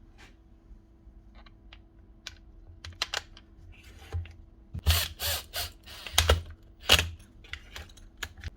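Small clicks and knocks of power-drill parts being handled and fitted together during reassembly, sparse at first, then a cluster of louder knocks past the middle.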